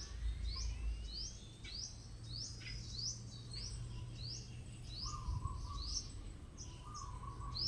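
A bird calling over and over, short high chirps about twice a second, with a low steady hum beneath.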